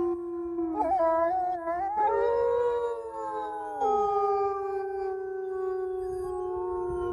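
Several wolves howling together in a chorus, long overlapping howls at different pitches, some held steady and some sliding up or down, with a wavering, broken passage a second or two in. It is a group bonding howl, which affirms pack unity.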